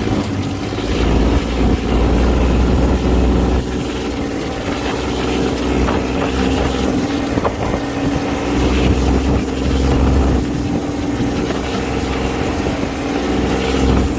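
Off-road buggy engine running as the buggy drives, a steady droning note over a deep rumble that swells and fades a few times.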